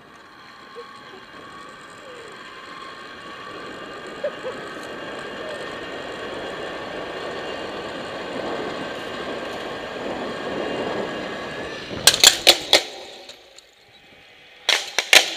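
Zipline trolley's pulley wheels running along the steel cable: a whirring hum with a faint steady whine that grows louder as the rider picks up speed. About twelve seconds in comes a burst of loud sharp clacks as the trolley reaches the brake at the end of the line, then another cluster of clacks near the end.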